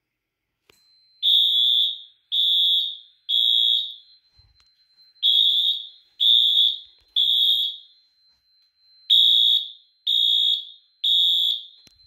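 Fire alarm sounder going off after a manual pull station is pulled, loud. It sounds the temporal-3 evacuation pattern: three high beeps about a second apart, then a pause, repeated three times, the first group starting about a second in.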